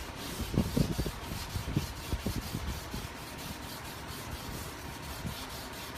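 Hand wet-sanding of a freshly painted patch on a car bumper: a sanding pad rubbed back and forth over the wet paint, with light pressure, in a run of short scratchy strokes.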